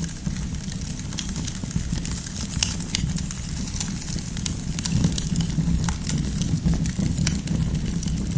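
Wood campfire burning: a steady low rumble of flames with frequent, irregular sharp crackles from the firewood.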